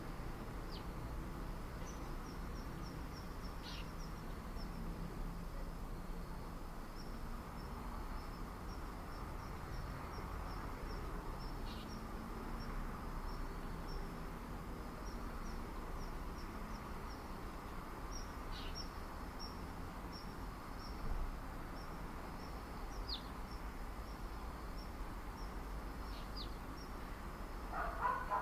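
Suburban residential outdoor ambience: a low, steady background rumble, with a high chirping repeated a few times a second throughout and brief high calls every few seconds. A louder, wavering mid-pitched call comes right at the end.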